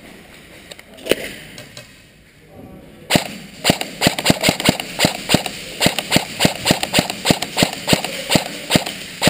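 Airsoft gun shots: a single crack about a second in, then from about three seconds in a rapid string of shots at roughly three a second.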